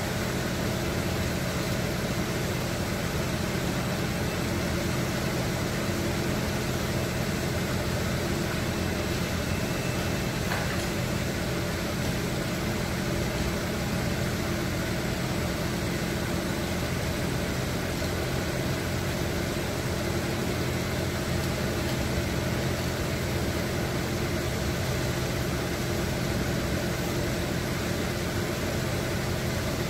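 Steady hum of a running motor with a constant rushing noise, unchanging throughout.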